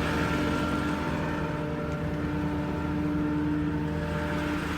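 Ford F-550's 6.4-litre Power Stroke V8 diesel running steadily at raised idle with the PTO engaged, a constant hum with no change in speed.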